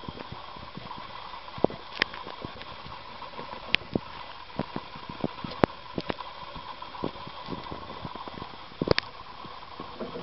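Irregular small clicks and taps, a few of them louder, from a dwarf hamster's claws on a clear plastic cage platform, over a steady hiss.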